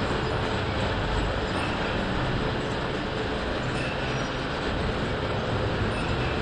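Märklin tinplate O gauge electric locomotive and coaches running slowly on tinplate track: a steady rattling running noise of metal wheels and the electric motor.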